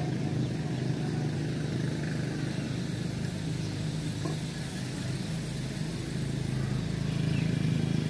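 A steady low engine hum, growing a little louder near the end.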